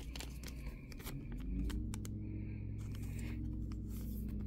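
Topps Chrome baseball cards handled and flipped through by hand: light clicks and slides of the card stock against each other. A steady low hum comes in about a second and a half in and holds.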